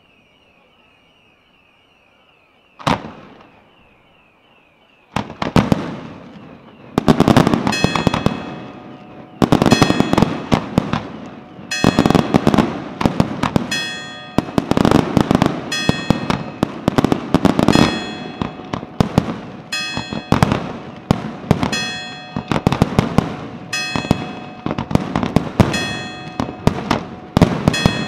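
Aerial fireworks display: a single loud bang about three seconds in, then from about five seconds a rapid barrage of shell bursts, roughly one big bang a second with crackling between, and steady ringing tones heard through it.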